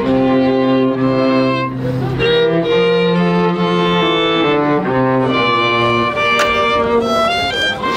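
Violin and cello played live, a slow melody of long held notes over a low line, the notes climbing step by step near the end.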